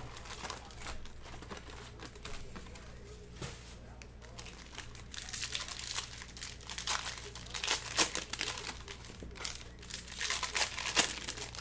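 Plastic cello wrappers of Panini Prizm trading-card packs crinkling as the packs are handled, and a pack being torn open. It comes in irregular crackly bursts, busiest and loudest in the second half.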